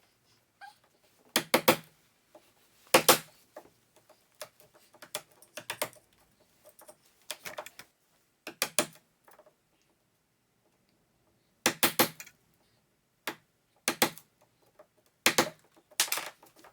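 Irregular sharp knocks and clicks, several in quick pairs, from hand work on a door's latch strike plate and the hole behind it, which are being moved down to line up with the latch.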